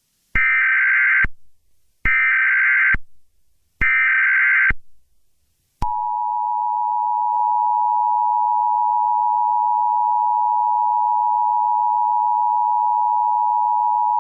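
Emergency Alert System tones: three short harsh bursts of the digital SAME header, then the steady two-pitch EAS attention signal held for about eight seconds. Together they mark the start of an emergency alert broadcast.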